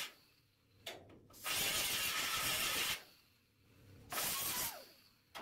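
Angle grinder with a flap disc grinding down plug welds on a sheet-steel rocker flange, in a few short bursts separated by sudden near-silent gaps.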